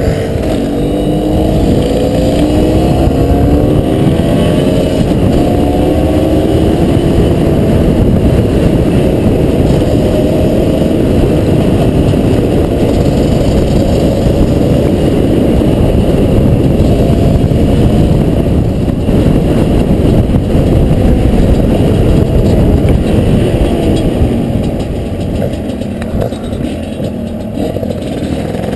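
Honda CRM250RM's two-stroke single-cylinder engine under way, revving up and down as the bike rides, its pitch climbing and dropping repeatedly in the first few seconds, then running hard and rough before easing off near the end.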